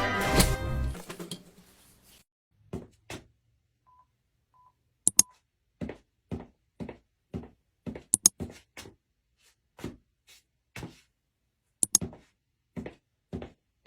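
Music fades out, then three short beeps of a recording cue sound. After them comes a steady series of soft footfalls about two a second, Foley footsteps on a stage, with a few sharp clicks among them.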